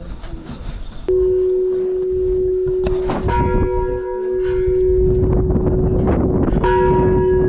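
Large metal bell struck about a second in, ringing on in a long steady tone. It is struck again about three seconds in and near the end, each strike bringing back its higher overtones.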